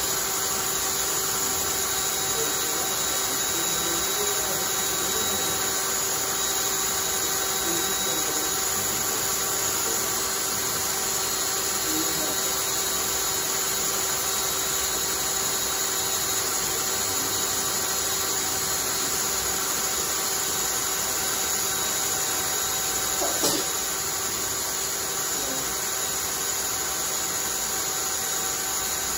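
Cordless drill running steadily at constant speed, spinning a homemade centrifuge rotor of wooden discs on a threaded rod: an even motor whine. A single brief knock comes late on.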